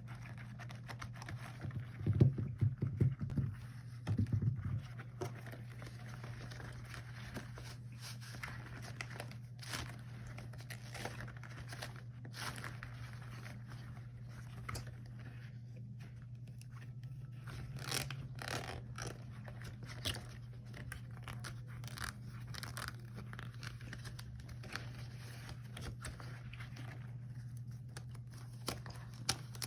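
Rubber gloves handled close to the microphone: scattered sticky crackles and scraping rubs. There are a few louder low thuds about two to five seconds in, over a steady low hum.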